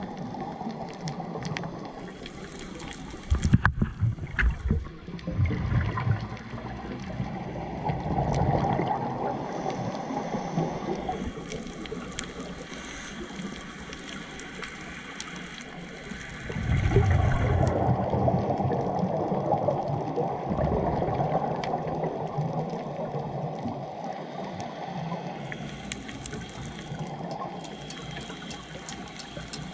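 Underwater sound of a scuba diver's exhaled bubbles from the regulator gurgling past the camera. The bubbles come in spells of a few seconds, the longest about halfway through, over a steady underwater hiss.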